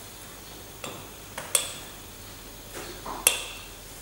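A glass measuring cylinder clinking against the rim of a glass beaker as the last of the acid is poured out, then knocked down on the bench: several short, sharp glass clinks, the two loudest ringing briefly.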